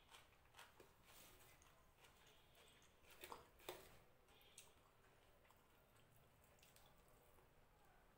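Faint sounds of eating by hand: fingers mixing rice with fish and gravy on a plate, giving soft scattered clicks, with two slightly louder ones a little past three seconds in.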